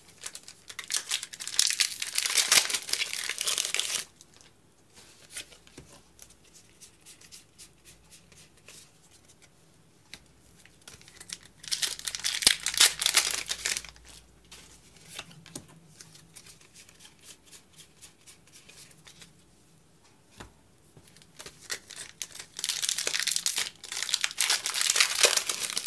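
Foil Pokémon Team Up booster pack wrappers crinkling and tearing as the packs are opened by hand, in three bursts a few seconds long, about ten seconds apart. Quieter handling sounds fill the gaps.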